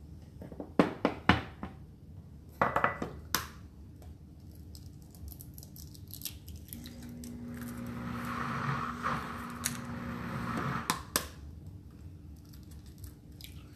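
Egg shells knocked and cracked open over a small glass bowl: several sharp taps in the first few seconds and another near the end. From about halfway the cooking blender's motor hums steadily for several seconds as it blends in sauce mode, then stops.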